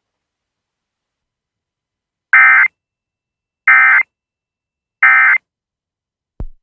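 Emergency Alert System end-of-message signal: three short, loud bursts of SAME digital data tones, evenly spaced about a second and a half apart, marking the close of the alert broadcast. A faint click follows just before the end.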